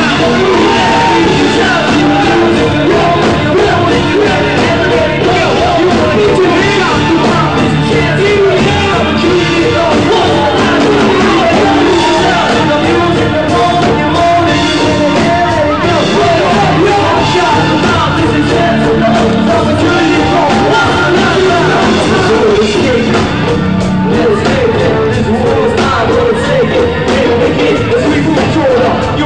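Live band playing loudly, with drums, keyboard and singing.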